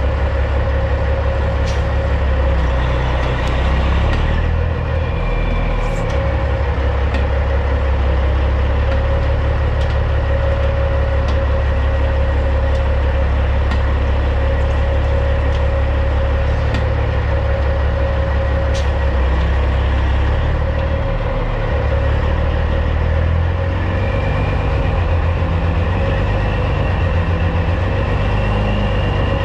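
Heavy truck diesel engine, the CAT C15 of a 2006 Peterbilt 379, running steadily at low revs. A few faint sharp ticks sound now and then.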